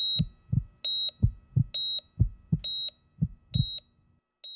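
Heart-monitor sound effect: a high electronic beep about once a second, with paired low heartbeat thumps between the beeps. The thumps stop near the end, and one fainter beep follows.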